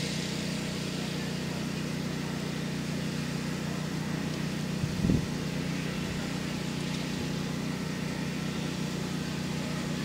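Steady low mechanical hum, like an idling engine, with a single brief thump about halfway through.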